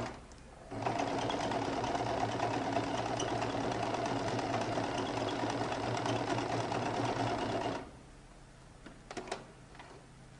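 Electric sewing machine stitching a buttonhole: a short run stops just as it begins, the machine starts again under a second later, runs steadily for about seven seconds and stops abruptly. A few light clicks follow.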